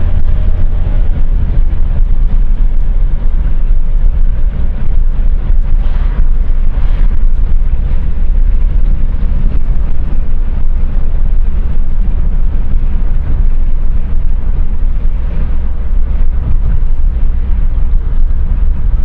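Loud, steady low rumble of a car on the move: road and engine noise heard from inside the cabin.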